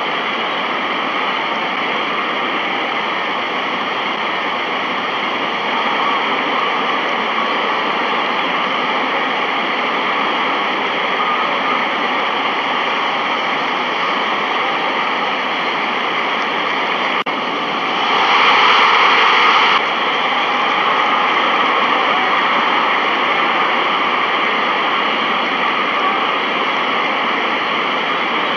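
A steady rushing noise with no clear pitch or rhythm. About two-thirds of the way through it briefly grows louder and brighter for a couple of seconds, then drops back suddenly.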